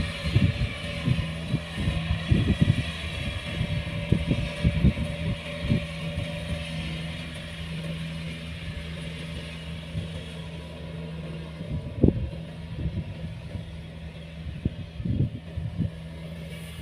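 Kubota combine harvester engine running steadily, with irregular low thumps and a sharper knock about twelve seconds in.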